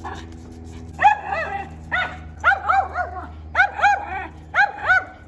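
A miniature schnauzer barking in quick, high-pitched volleys of two to four yaps, about once a second. This is reactive, fear-aggressive barking at another dog.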